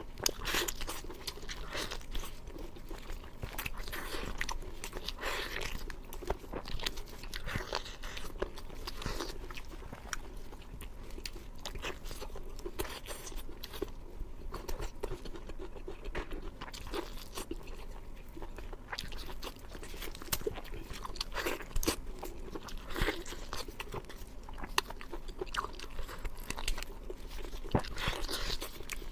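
Close-miked eating of beef short ribs: bites and chewing with frequent irregular crunches.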